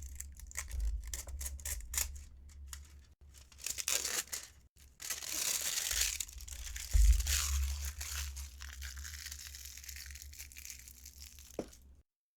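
Plastic wrap being torn and crinkled off a freshly cut-open tarot deck: a run of short crackles, then a longer, louder rustle about five seconds in that slowly fades.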